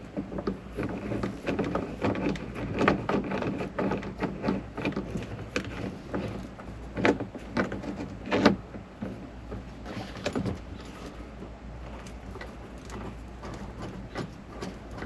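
Hand work on a small metal camper lock as its clip and screw are fitted: a run of clicks, taps and light knocks, busiest in the first half, with two sharper clicks about seven and eight and a half seconds in, over a steady low hum.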